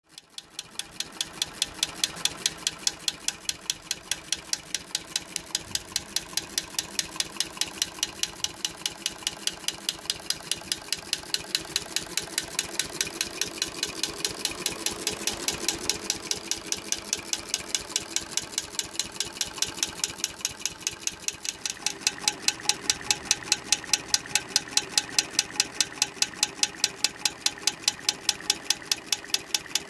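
Homemade engine with a piezoelectric 'magneto' ignition running. The striker smacks a grill-igniter ceramic element in time with the engine, giving a steady train of sharp mechanical clicks, several a second. The clicks grow louder about two thirds of the way through.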